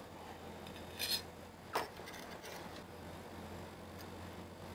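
Metal spatula handling grilled salmon fillets between a stainless-steel tray and a ceramic plate: a short scrape about a second in, then a light clink, over a low steady hum.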